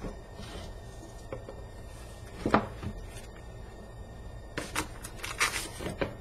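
Handling noises as camera gear and packaging are moved: a sharp knock about two and a half seconds in, then a cluster of clicks and knocks near the end, over a low steady hum.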